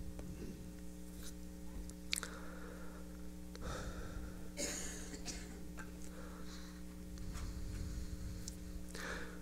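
A quiet pause: a steady electrical hum from the sound system, with a few faint breaths and small mouth noises.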